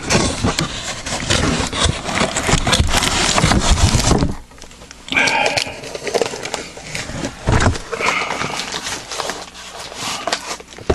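Cardboard and wrapping rustling and crinkling as a firework shell is pulled out of its box. Dense handling noise with clicks and knocks for the first four seconds, then scattered rustles and bumps.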